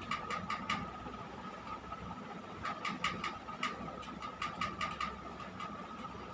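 A small motor humming steadily with a thin high whine, under a scatter of short, irregular clicks and rustles.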